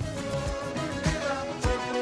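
Background music: an upbeat song with held instrumental notes over a steady drum beat.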